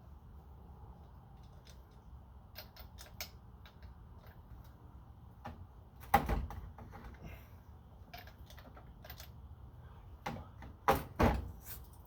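Scattered clicks and ticks of hand tools being worked on metal, with one loud clunk about six seconds in and two more close together near the end, while a stuck fitting on an angle grinder is being fought loose.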